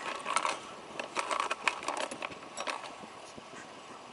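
Rustling and irregular clicking, with light metallic jingling like keys or duty-belt gear, as an officer moves and handles things close to a body-worn microphone.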